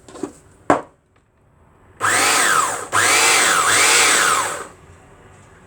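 Graef CM 702 conical burr coffee grinder's motor running in two bursts, a short one of about a second and then a longer one of about two seconds, its whine rising and falling in pitch. This is a test run after the burrs were reassembled. A couple of clicks come before it starts.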